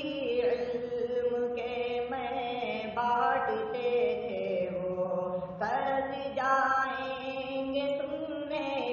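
Nasheed singing without words: layered voices holding long notes, moving to a new pitch every second or so.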